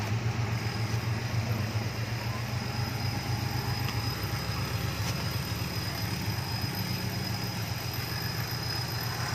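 Off-road 4x4's engine running steadily at a low, even pitch.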